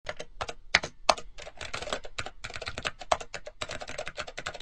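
Typing sound effect: a fast run of computer keyboard keystroke clicks with a few brief pauses, starting suddenly out of silence.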